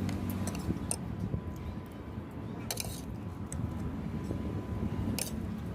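Eating and mealtime handling noises: a few short, crisp clicks and crunches at the start, in the middle and near the end, over a steady low rumble.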